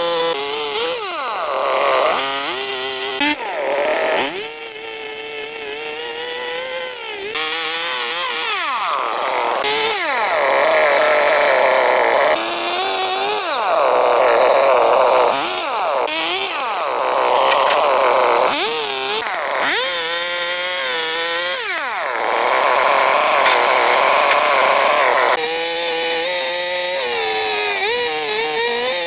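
Two-stroke chainsaw running at high revs and cutting wood, its engine pitch repeatedly sagging under load and climbing back as the chain bites and frees.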